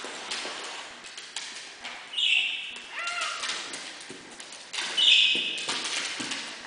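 A Pomeranian, a beagle and a cat jostling on a wooden floor: paws and claws tapping and knocking, with short animal cries about two, three and five seconds in.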